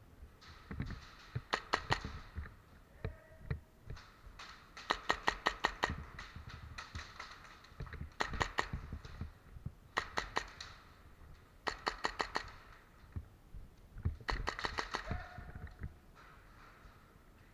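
Airsoft guns firing repeated short bursts, each a quick run of sharp snapping shots, about six bursts in all.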